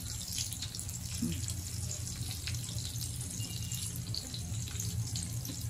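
Ham slices and pork belly sizzling on a grill pan: a steady hiss with fine crackles, over a low steady hum.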